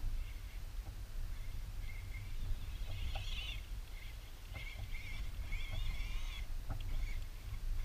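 Wind buffeting the microphone as a steady low rumble, with short wavering high chirps coming and going over it and a few faint clicks.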